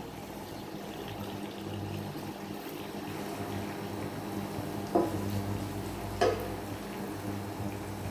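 Onions and garlic sizzling in hot oil in a frying pan, with a steady low hum underneath. Twice, a little over a second apart, a sharp knock cuts through.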